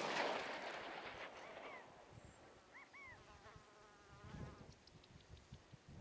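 The echo of an AR-15 rifle shot rolling away and fading over the first two seconds. Then faint chirps and a short wavering call, a soft thump, and a few light clicks near the end.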